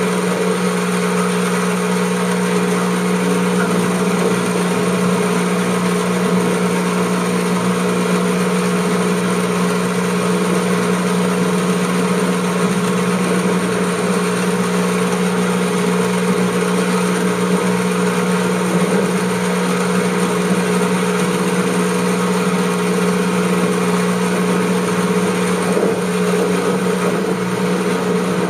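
Kubota SR-J5 combine harvester's engine running at a steady speed, heard from on the machine, a loud, even drone.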